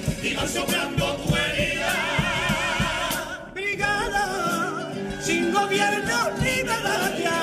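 Cádiz carnival comparsa chorus singing held notes with vibrato, over rhythmic hand-clapping and guitar. The music breaks off briefly about halfway through and comes back in.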